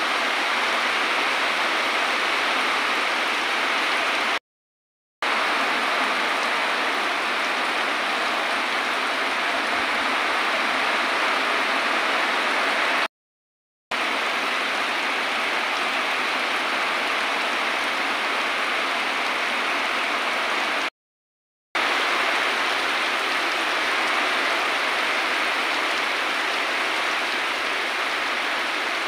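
Heavy tropical downpour: a dense, steady hiss of rain pouring onto wet ground and foliage. It cuts to silence briefly three times.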